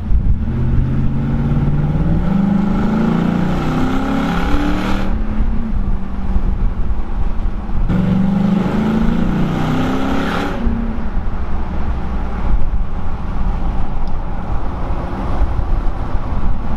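2013 Ford Raptor's 6.2-litre V8 through a new aftermarket Dirty Deeds exhaust, revved twice: the first rev climbs in pitch for about four seconds and drops off sharply, the second rises about eight seconds in and falls back, with the engine idling in between and afterwards.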